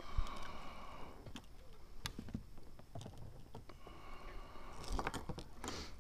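Scattered light clicks, knocks and rustles of a hand-landed largemouth bass and fishing line being handled over the side of a small inflatable boat.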